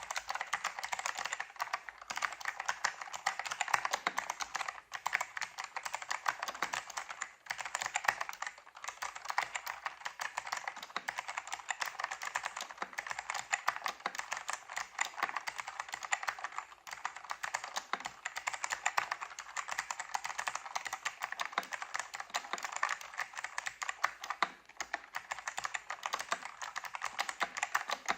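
Fast continuous typing on a KB-8851 mechanical keyboard with ALPS-style Type T5 switches: a dense stream of key clicks, pausing briefly a few times.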